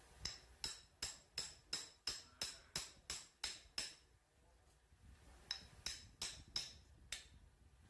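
Claw hammer striking a steel drift held against a Mitsubishi 4G93 aluminium cylinder head, driving an exhaust valve guide. Sharp metallic blows with a bright ring, about three a second: a run of about eleven, a short pause, then five more.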